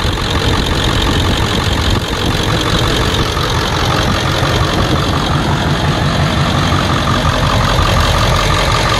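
Ford 7.3-litre Power Stroke turbo-diesel V8 idling steadily, heard up close in the engine bay, with a thin steady whine joining in about halfway through.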